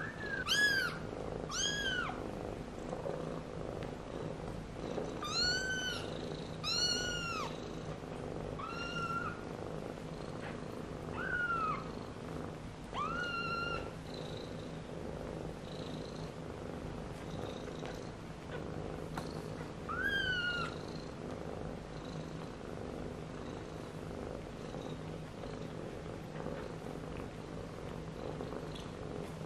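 Newborn kittens giving several short, high-pitched mews, most in the first half and the last about twenty seconds in, over steady purring as the litter nurses from their mother cat.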